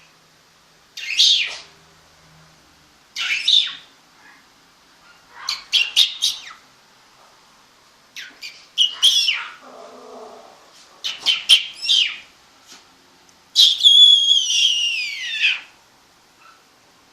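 Chihuahua puppies whining and squealing in high-pitched cries: about six short bursts separated by quiet gaps, ending in a longer whine that falls in pitch.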